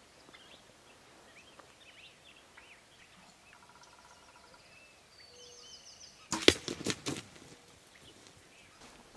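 Bow shot at a wild turkey about six and a half seconds in: a sharp snap of the bowstring and the arrow striking, followed by a brief flurry of knocks. Faint bird chirps come before it.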